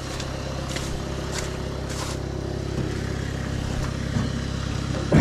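Diesel engine of a VW Syncro van idling steadily, with a few faint clicks in the first two seconds and a short loud burst right at the end.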